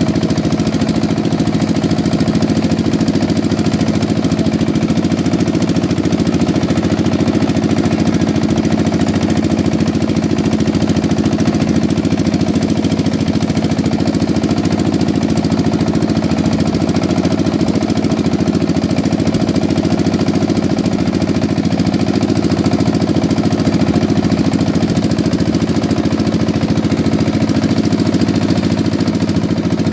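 Motor of a river boat running steadily at constant speed, with a fast, even chugging beat.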